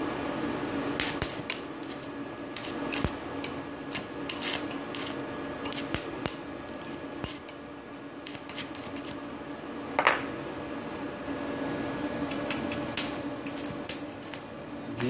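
Stick-welding arc with a 4 mm electrode on an EG 250A-DC inverter welder set to 80 amps, crackling in short broken bursts of sharp clicks with pauses between them: the current is too low for that rod to hold a steady arc. A steady machine hum runs underneath.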